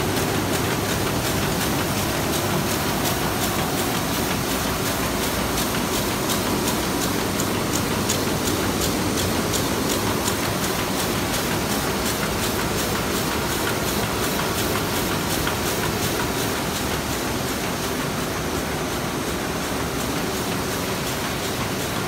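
Heidelberg SM52 six-colour sheetfed offset press running, a loud steady mechanical clatter with a fast, even rhythm from its printing units and sheet transport.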